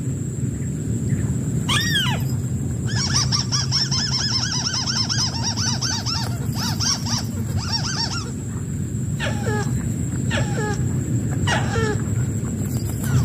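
White-browed crake calling: a fast run of repeated nasal chattering notes, about five a second, in the middle, with single downward-sliding calls before and after it, over a steady low rumble.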